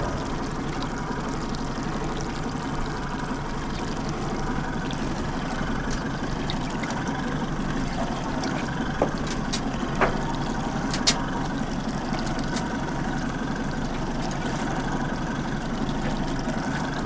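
A boat's engine running steadily, with water sloshing against the hull; a few short clicks about nine to eleven seconds in.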